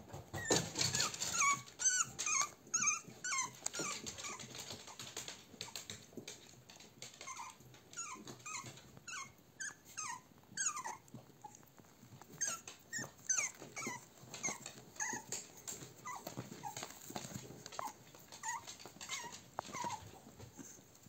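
American cocker spaniel puppies crying in many short, high-pitched calls that fall in pitch. The cries come in clusters, thickest in the first few seconds and again through the middle, and thin out toward the end.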